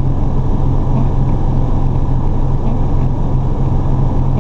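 The diesel engine of a 1992 Saulsbury Simon/Duplex fire engine running steadily, heard from inside its cab as an even, low drone.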